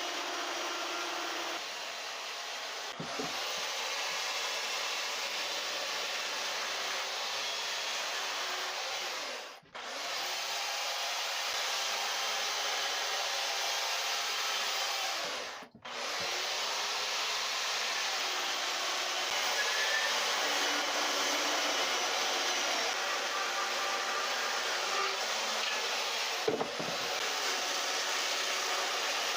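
Chainsaw cutting into a wooden log, running steadily with two brief stops, about ten and sixteen seconds in.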